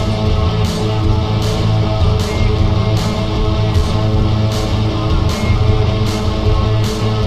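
Heavy rock music with distorted electric guitar, driven by a steady beat with a drum or cymbal hit about every three-quarters of a second.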